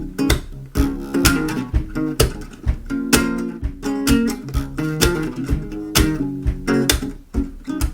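Instrumental music: a strummed guitar over a steady beat, with no singing.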